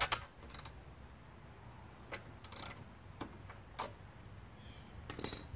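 Light metallic clicks and taps, about seven spread unevenly over five seconds, from a hand tool working at the spark plug of a Craftsman chipper vac's 5 hp engine as the plug is taken out for a spark check.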